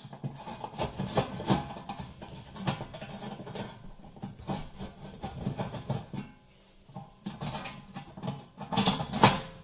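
Screwdriver undoing the screws on a fan oven's steel fan cover panel inside the oven cavity: irregular metallic clicks and scrapes, with a louder clatter near the end.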